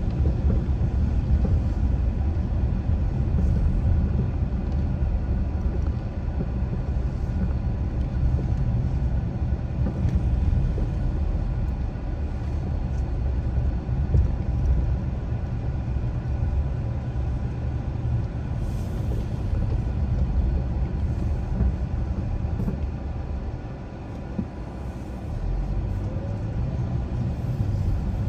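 Car driving, a steady low rumble of engine and road noise that eases off for a moment near the end, then picks up again.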